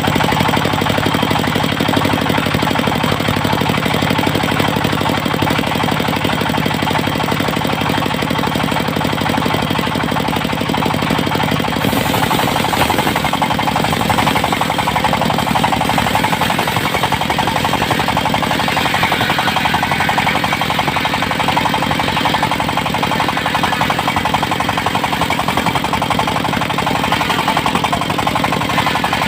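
Diesel-driven circular sawmill running loud and steady with a rapid knocking beat. About twelve seconds in the sound turns rougher and harsher, in keeping with the blade biting into teak.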